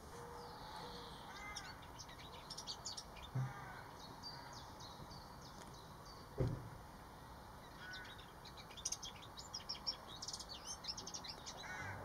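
Small songbirds singing in two bouts of quick, high twittering notes, with a single loud low thump about halfway through.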